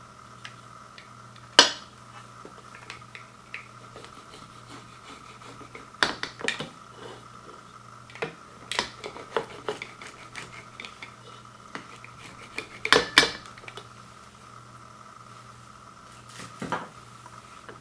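Cutlery and dishes clinking and knocking: scattered light clinks, with a few louder knocks about a second and a half in, around six seconds, around thirteen seconds and near the end.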